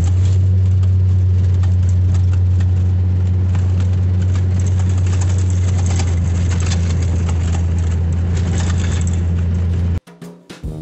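Off-road vehicle driving on a sandy dirt track, heard from on board: a steady, loud low engine and road drone with many small rattles and clicks. It cuts off suddenly near the end, and plucked-string music starts.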